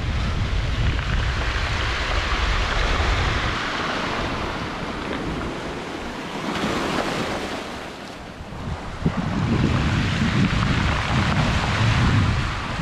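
Small sea waves breaking and washing over a black-pebble shore. Wind buffets the microphone with a low rumble. The surf swells and eases, dipping a little past the middle before building again.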